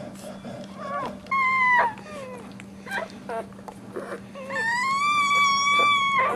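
Newborn pit bull puppy squealing while rooting for a teat: a short cry about a second in, a few brief yelps, then one long, high cry near the end.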